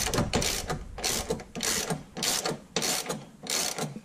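Hand ratcheting wrench working an 18 mm nut loose, its pawl clicking in a short burst on each back stroke, about one stroke every half second. The nut is stiff all the way out.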